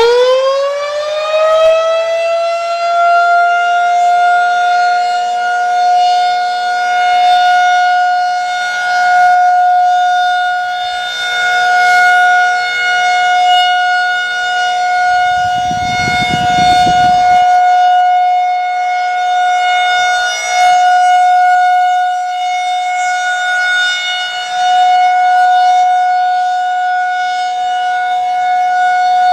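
Federal Signal 2001-SRNB rotating electromechanical warning siren finishing its wind-up in the first second or two, then holding one steady tone. It swells and fades every few seconds as the head turns. It is sounding a routine scheduled test of the nuclear plant's outdoor warning sirens.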